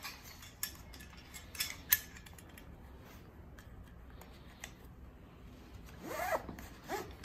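Nylon webbing and plastic buckles of a harness waist belt being fastened and adjusted: a few sharp clicks, the loudest about two seconds in, then a rasping zip of webbing pulled through the buckle near the end.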